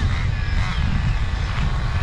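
Wind rumbling on the microphone, with the Traxxas Slayer Pro's 3.3 nitro engine running faintly in the distance.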